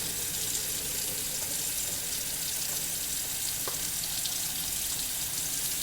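Tap water running steadily into a sink as hands are rinsed under it.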